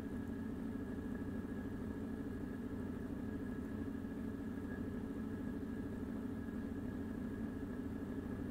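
Steady low hum with a faint hiss and a thin high tone, unchanging throughout.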